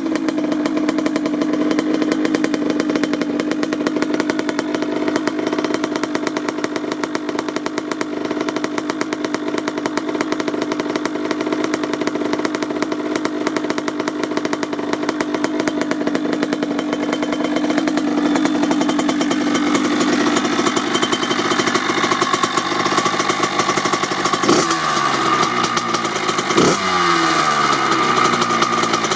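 Kawasaki KX80's 80cc single-cylinder two-stroke engine, with a Dep S2 silencer, idling steadily after a cold start. About two-thirds of the way through the idle rises, and near the end the throttle is blipped twice, the revs falling back quickly each time.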